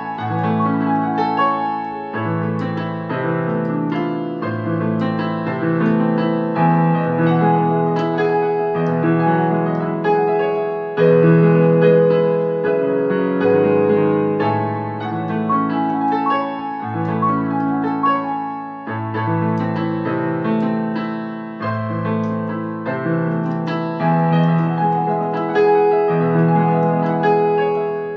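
Portable electronic keyboard played with a piano voice, both hands: held chords over a bass line that changes about every second, with quick melody notes above.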